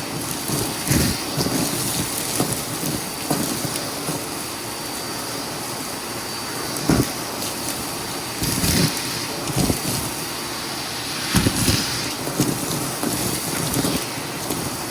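Vacuum cleaner running steadily with a faint high whine, with irregular crunching and rattling as debris is sucked up.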